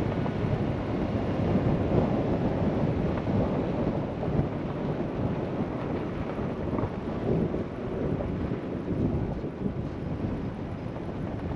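A vehicle driving on a dirt and gravel road: an uneven rumble of tyres and road noise, mixed with wind noise.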